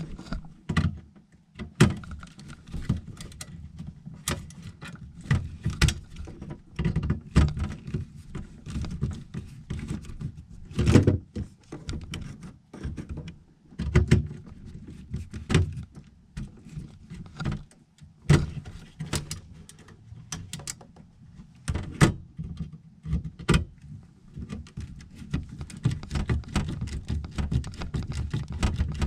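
Irregular clicks, taps and knocks of hands working on furnace wiring, pushing wire connectors onto a replacement control board, over low rustling handling noise.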